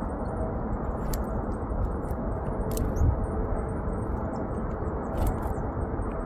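Steady low rumbling outdoor noise with faint, high, thin chirps of small songbirds scattered through it, and a few short clicks about one, three and five seconds in.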